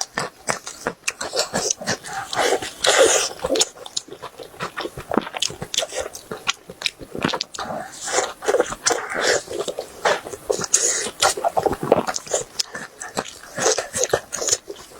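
Close-miked eating sounds: a person biting and chewing food in a dense, irregular run of wet clicks and short crackly bursts.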